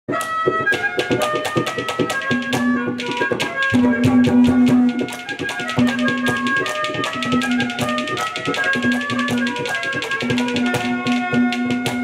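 Live folk-band accompaniment for a Haryanvi ragni: dholak barrel drums beating a fast, steady rhythm under a melody line, with one low note held again and again for about a second at a time.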